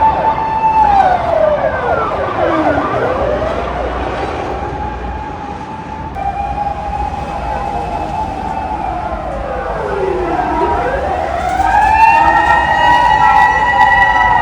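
Emergency vehicle siren wailing: a high tone is held, then falls slowly and rises back again, twice. Near the end a second wail overlaps it at a higher pitch.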